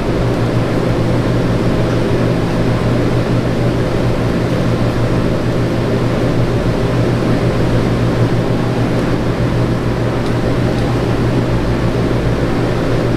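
Steady low mechanical hum, like room ventilation machinery, with no clear individual events.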